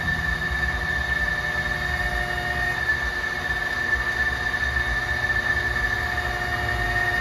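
Spring-arching roller machine running while a steel leaf-spring leaf is rolled through it to restore its arc. It makes a steady high whine over a low rumble, with a second, lower tone that cuts out about a third of the way in and comes back later.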